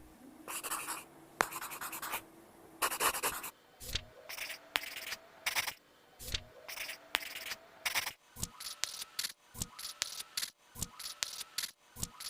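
Pencil scratching on paper in a rapid series of short strokes with brief pauses between them.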